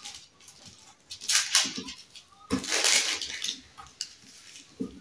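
Baking paper rustling and crinkling under hands as dough strips are laid on a lined baking tray. It comes in a couple of short bursts, about a second in and again near the middle.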